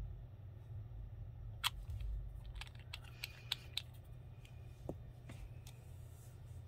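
A scatter of light plastic clicks and taps from handling a gel polish bottle, its brush cap and a plastic swatch stick, clustered in the middle, over a low steady hum.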